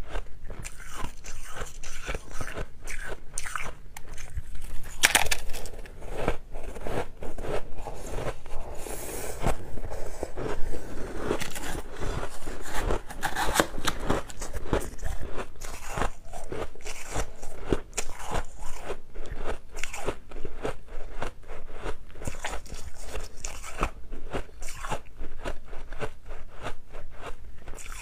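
Crushed white ice being bitten and chewed by mouthfuls close to a clip-on microphone: a dense, continuous run of crisp crunching and crackling.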